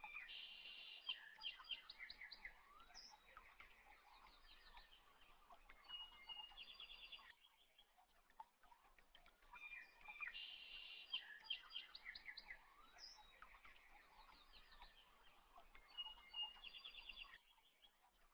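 Faint birds chirping and trilling: short high calls and rapid trills. The same stretch of about seven seconds plays twice, with a brief gap between, like a looped recording.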